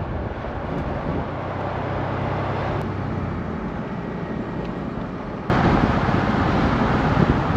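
1998 GMC Safari van with its 4.3-litre V6 under way: steady road and engine noise with a low engine hum. About five and a half seconds in, the noise abruptly gets louder and fuller.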